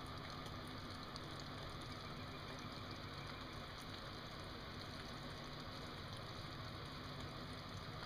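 Steady low engine hum under a constant faint hiss.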